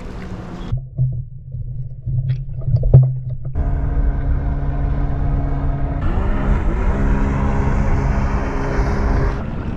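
Motor engine running with a low rumble; about six seconds in its pitch rises briefly and then holds steady.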